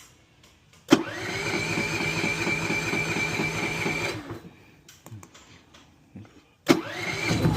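A portable generator's electric starter cranks the engine: a whine that rises and settles over even compression pulses for about three seconds, then stops without the engine catching. It cranks again near the end. The engine is failing to fire because the choke is off.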